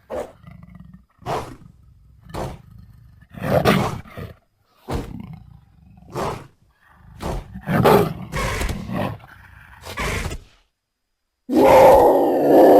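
Designed creature calls for an extinct giant gelada baboon (Theropithecus oswaldi), mixed from leopard and baboon sounds: a series of short calls about a second apart, then after a brief pause a louder, longer call near the end.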